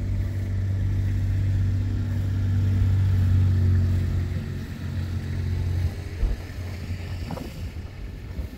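An engine running at a steady speed, a low drone that swells about three seconds in and eases off near the end, with one short knock shortly before the end.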